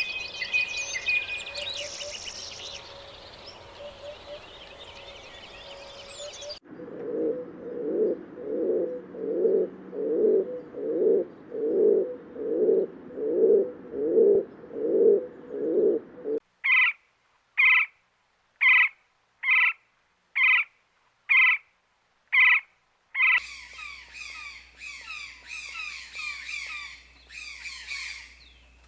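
A run of separate animal-call clips joined by abrupt cuts: first dense bird chirping, then a low call repeated about one and a half times a second, then a single high call repeated about once a second with silence between, then many high chirps and calls overlapping.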